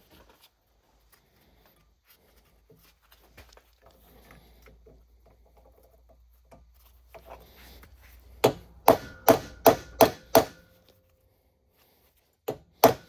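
Hammer strikes driving a bolt-extractor socket onto a rusted, stripped bolt so it bites. There are a few seconds of faint tool handling, then a quick run of six blows, a short pause, and two more blows near the end.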